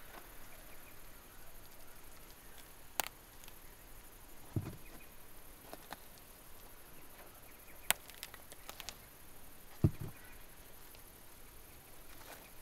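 Leather-gloved hand picking prickly pear fruit off the cactus: a few sharp clicks and two short dull knocks as the fruit is grasped and snapped off, over a faint outdoor hush.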